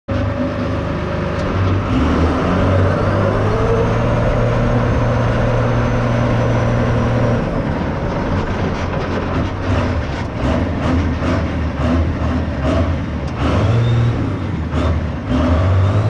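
Mega truck's engine running loudly, its pitch rising and falling, with a series of short sharp knocks starting about halfway through.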